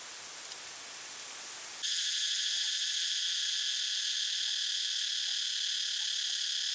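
A steady, even hiss that cuts off suddenly about two seconds in, giving way to a louder, steady insect chorus buzzing at several high pitches at once.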